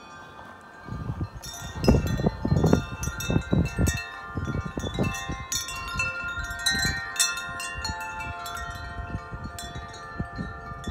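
Wind chimes ringing, many tuned tones struck again and again as the wind picks up about a second and a half in. Gusts of wind rumble on the microphone beneath them.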